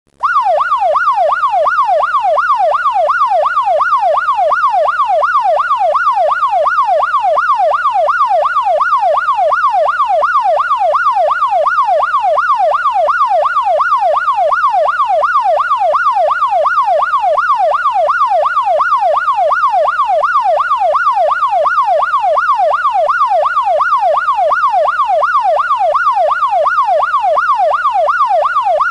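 Ambulance siren in fast yelp mode, its wailing tone sweeping rapidly up and down about two to three times a second, at a steady, unchanging loudness throughout.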